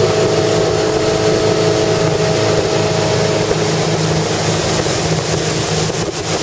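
Tow boat's engine running steadily at speed, with a steady hum under a constant rush of wind and water spray.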